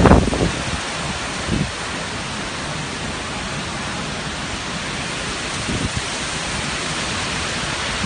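Strong tropical-storm wind blowing steadily, with gusts buffeting the microphone with low thuds at the start, about a second and a half in, and again near six seconds.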